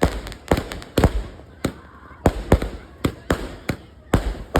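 A 120-shot firework cake firing in quick succession: about a dozen sharp bangs at uneven spacing, two or three a second, each with a low boom and a short echoing tail.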